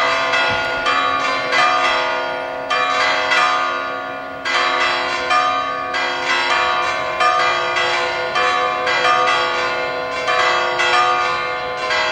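Church bells pealing: bells of several pitches struck in a steady sequence, roughly one to two strikes a second, their tones ringing on and overlapping between strikes.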